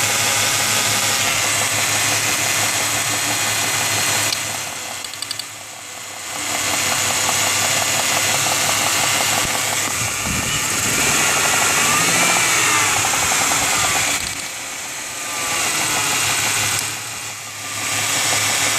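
1995 Ford Mustang's 3.8-litre V6 running at idle and knocking, with the plug wire for cylinder 6 pulled; the owner finds the knock gets louder with that cylinder unplugged. The sound drops in level three times.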